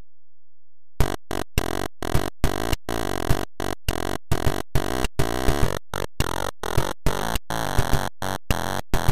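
ZX Spectrum chiptune music. It starts abruptly about a second in after silence, with harsh buzzy square-wave tones, a sharp hit on each beat about two or three times a second, and brief dead-silent breaks between notes.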